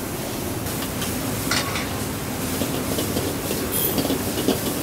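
A metal wok spatula scraping and tossing sizzling noodles in a wok over the steady rush of a gas wok burner. The strokes come quicker and more regularly from about halfway through.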